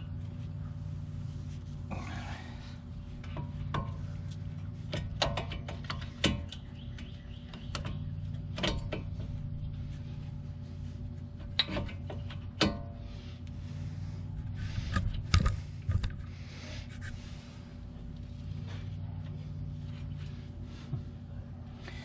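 Front brake pads and their caliper-bracket clips being handled and fitted by hand: scattered sharp metal clicks and clinks, several close together around a quarter of the way in and a cluster near the middle, over a steady low hum.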